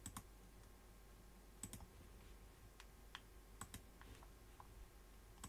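Near silence with faint, scattered clicks of a computer keyboard and mouse, about a dozen over the few seconds, in small clusters.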